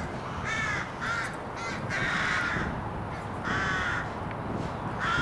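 Crows cawing repeatedly, harsh calls over a steady rushing background that starts abruptly.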